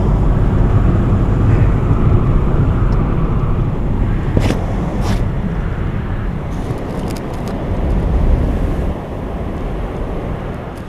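Loud, steady low rumbling roar of noise, with two sharp cracks about four and five seconds in, that cuts off abruptly at the end.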